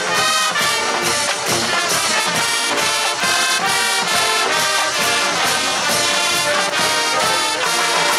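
Marching band playing loudly in full: massed brass with drum and percussion strokes keeping a steady beat.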